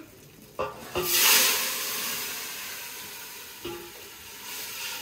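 Water poured into hot oil and ghee in a cooking pot, bursting into a loud hissing sizzle about a second in that slowly dies down.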